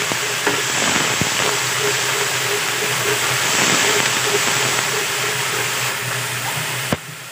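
Blended chilli paste (cili boh) frying in hot oil in a wok, stirred with a wooden spatula: a steady sizzling hiss. Near the end there is a sharp click, and the sizzle is quieter after it.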